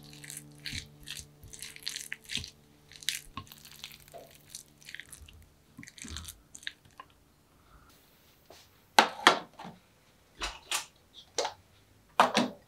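Soft squishing and scraping of mashed kabocha squash being mixed with marinated red cabbage in a glass bowl, then a handful of loud clinks and knocks of kitchenware being handled near the end.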